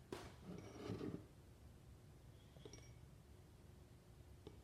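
Near silence: room tone, with faint soft handling noise in about the first second.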